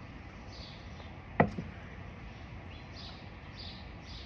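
Birds chirping faintly over a steady background hiss, with a sharp knock about one and a half seconds in and a softer one just after.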